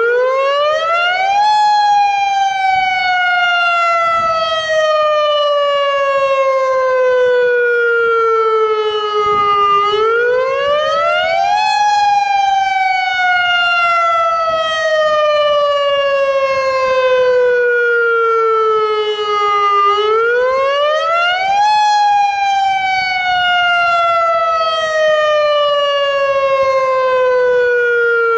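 Federal Signal AHAB tsunami warning siren sounding its wail, the tone used in real emergencies. The pitch rises quickly for about a second and a half, then falls slowly for about eight seconds, and the cycle repeats three times.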